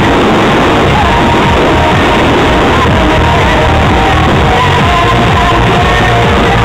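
Loud music with singing voices, played for a pyromusical fireworks show.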